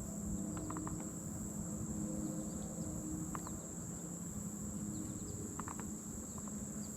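Steady high-pitched insect chorus, with a few faint short ticks scattered through it.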